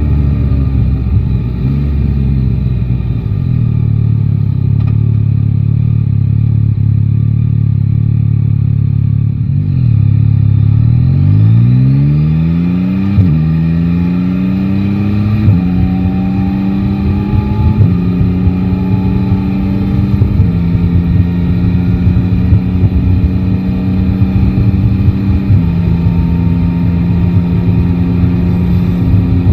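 Yamaha Tracer 9 GT's three-cylinder engine running steadily at low revs, then about ten seconds in pulling away hard, the revs climbing and dropping back at each of five upshifts through the gears.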